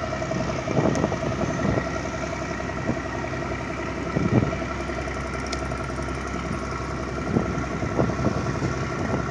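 A steady engine drone with a constant hum, punctuated by a few short thumps, the loudest about four seconds in.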